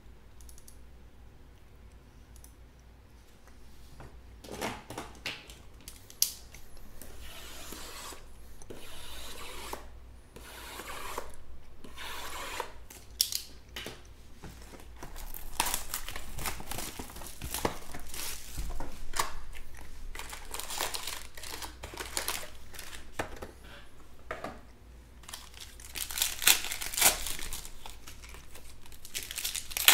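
Trading-card packs and their box packaging being torn open and handled: wrappers crinkling and ripping in irregular bursts, loudest near the end.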